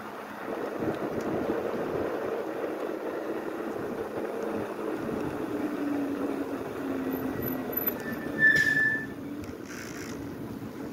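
Wind and riding noise from an e-bike on the move, with a hum that slowly falls in pitch over the first several seconds. About eight and a half seconds in comes a brief high squeal, the loudest sound.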